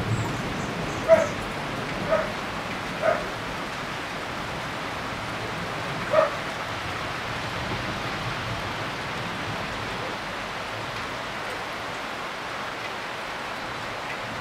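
Steady rain hiss with a dog barking four times: three barks about a second apart near the start, then one more about six seconds in.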